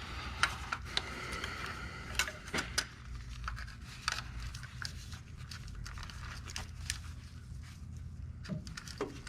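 Scattered clicks, knocks and light rattles of hand tools being handled under the car as a strap wrench is fitted onto a new spin-on oil filter to tighten it, over a steady low hum.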